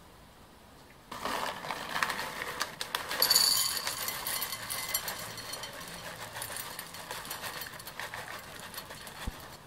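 Dry kibble poured from a paper bag into a ceramic bowl: a dense rattle of small pellets hitting the bowl and each other. It starts about a second in, is loudest around three seconds in, then thins out as the pour slows.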